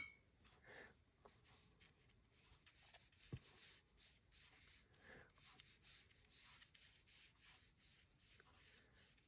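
Faint, scattered strokes of a watercolour paintbrush brushing across paper, with one sharp click right at the start.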